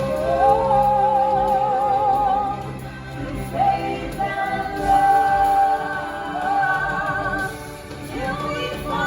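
Stage-show music: a singer holds long notes with a wavering vibrato over instrumental backing, with a short dip in the music twice.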